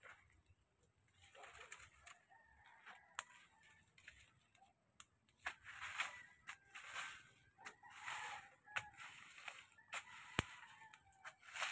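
Small fire of cut grass and brush crackling with scattered sharp pops, and dry vegetation rustling in swells as it is stirred with a bamboo pole.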